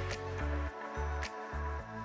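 Background music with a low bass line of short, repeated notes.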